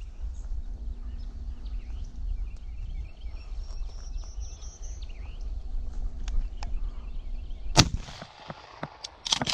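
A single shotgun shot from a Remington 870 pump shotgun about eight seconds in, the loudest thing here, with a short echo. Before it there is a low wind rumble on the microphone, light rustling and ticks of steps through grass and brush, and birds singing faintly. A short cluster of clatter follows about a second and a half after the shot.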